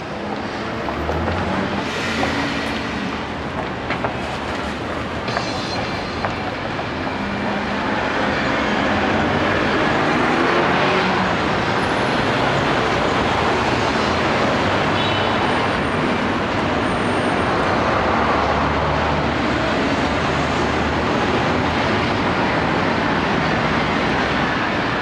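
Sapporo city streetcar running on its rails, mixed with steady city street traffic; the noise grows a little louder about a third of the way in and then holds.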